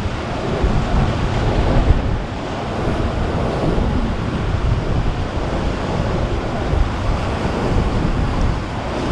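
Ocean surf washing against coastal rocks, with wind buffeting the microphone.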